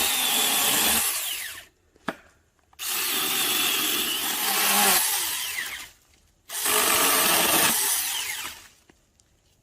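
Huing 4-inch cordless mini chainsaw, 21-volt battery-powered, running in three bursts of a few seconds each while cutting wood. Its motor whine falls away as the chain spins down between bursts, and there is one sharp click in the first pause.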